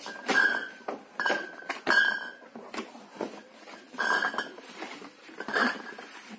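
Cardboard beer carton being opened by hand: its top flaps scraped and pulled back, with about five or six sharp knocks and scrapes, and the glass bottles inside clinking.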